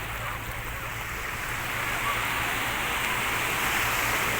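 Sea surf washing up the beach, a steady rush that swells louder about halfway through as a wave comes in.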